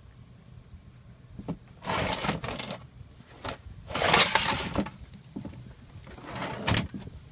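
Ratchet wrench clicking in three short bursts, loosening bolts on a pickup's rear differential to drain the gear oil.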